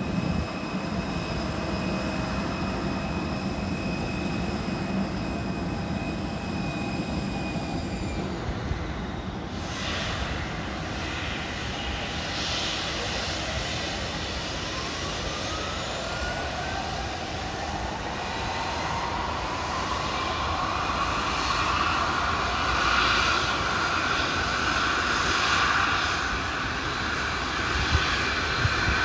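Airliner jet engines whining during pushback: a steady high whine fades away about eight or nine seconds in, then a new whine climbs in pitch and the rushing noise grows louder as an engine spools up on start.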